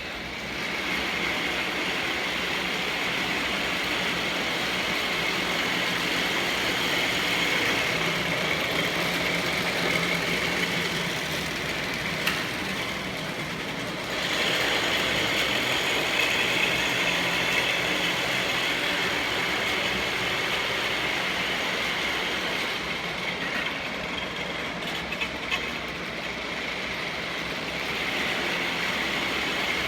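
A machine running steadily, a whirring motor noise with a high whine in it. It dips briefly about halfway through and picks up again.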